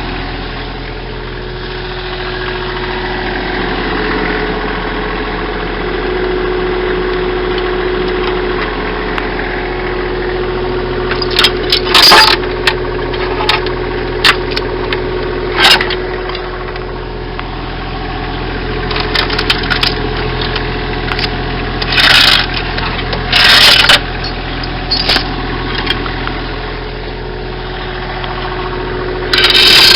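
Bobcat mini-excavator's diesel engine running steadily at idle, with a scattering of sharp knocks and clunks, about five louder ones spread through.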